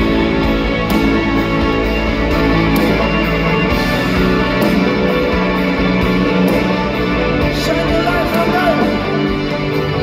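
Live rock band playing an instrumental passage, electric guitar over a steady drum beat, heard through a phone in a large arena.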